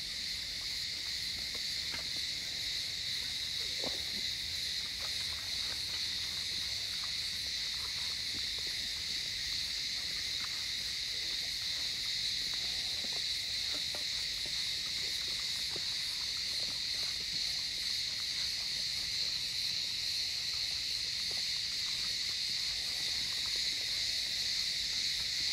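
Steady high-pitched drone of an insect chorus, unchanging throughout, with faint scattered clicks of puppies eating from a metal bowl.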